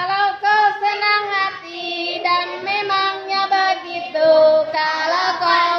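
Young schoolchildren singing a song together, in a melody of held notes.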